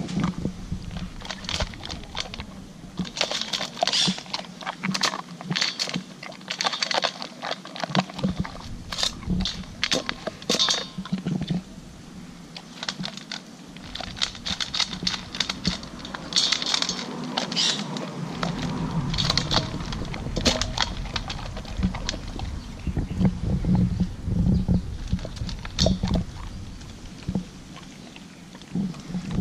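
A dog eating dry kibble and cucumber slices from a stainless steel bowl, with many quick, irregular crunches and clicks of chewing and of food knocking in the bowl.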